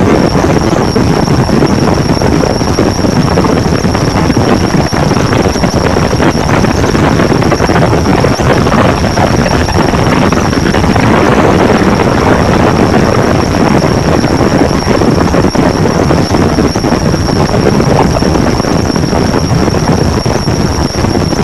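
Very loud, harsh, distorted noise with a steady high-pitched whine over it, running unbroken.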